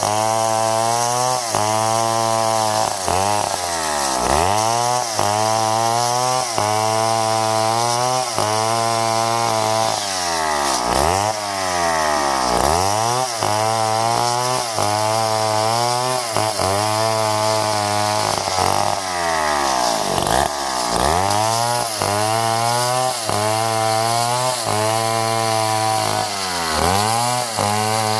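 Stihl 070 two-stroke chainsaw running hard and sawing wood, its engine pitch dropping sharply and climbing back several times over the cut.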